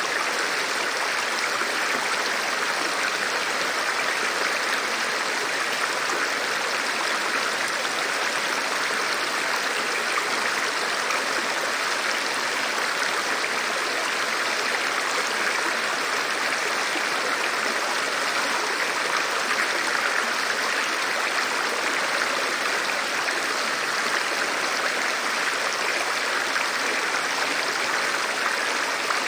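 River water rushing steadily, an even unbroken wash of running water.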